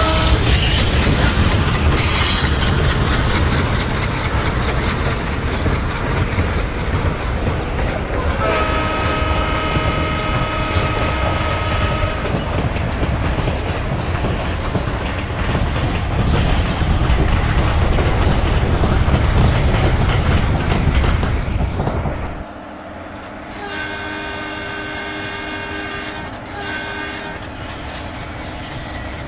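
Train rolling past close by, its wheels rumbling and clattering over the rails, with a horn sounding for about four seconds roughly a third of the way in. Near the end the rumble cuts away, and another horn sounds more quietly for a few seconds.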